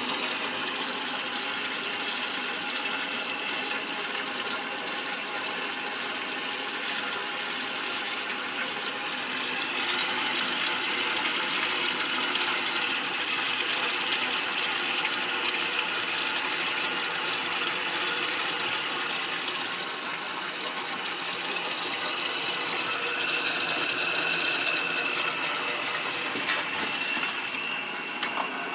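Washing machine filling with water for the rinse of a raw wool fleece: a steady rush of running water, with a couple of small clicks near the end.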